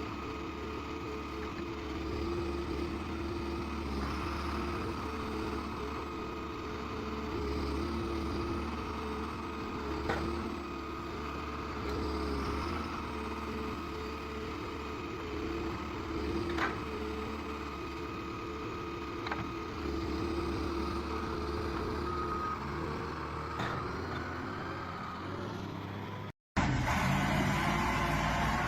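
Forestry machine's diesel engine running steadily with the hum of its hydraulics, and a few sharp knocks as the arm handles the tree. Near the end the sound breaks off suddenly and a louder engine takes over.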